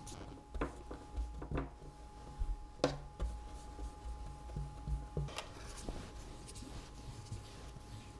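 Faint scratching of a wide flat watercolor brush spreading a gray wash across wet cold-pressed paper and working paint in the palette, with a few light knocks.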